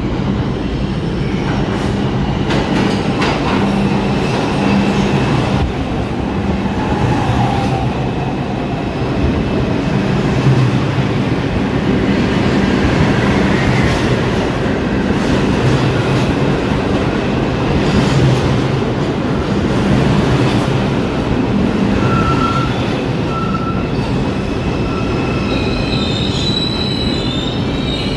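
New York City Subway train of R142-family cars pulling into an underground station: a steady loud rumble of wheels and traction motors on the rails. Near the end, high squealing tones come in as it slows.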